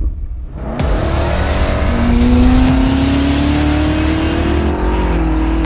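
BMW M8 Competition's twin-turbo V8 accelerating hard, breathing through catless downpipes; the exhaust note comes in about a second in and rises steadily in pitch for several seconds.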